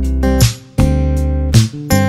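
Background music: a strummed acoustic guitar with a deep steady bass underneath, chords changing every half second or so.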